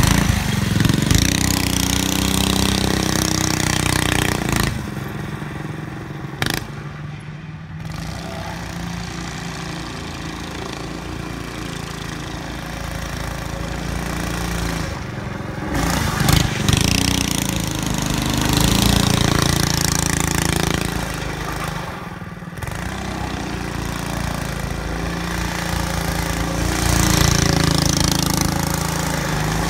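Small engine of a motorized drift trike running and revving, its pitch rising and falling with the throttle. Loud up close at first, it drops off after about four seconds as the trike pulls away, then grows louder again as the trike comes back.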